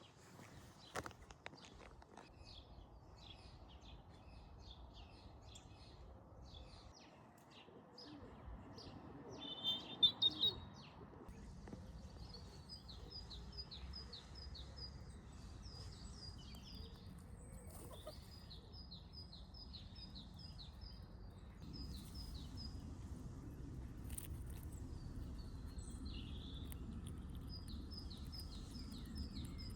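Small birds chirping in short repeated trills, over a faint steady low background rumble; one call about ten seconds in is louder than the rest.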